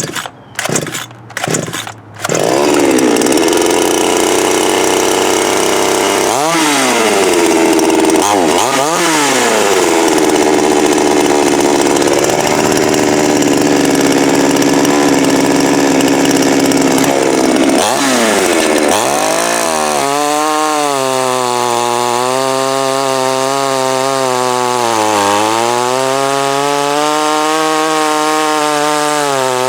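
Jonsered gas chainsaw's two-stroke engine pull-started cold, catching about two seconds in, then running at high revs. The revs dip and recover twice; from about twenty seconds the pitch drops and wavers, as under load.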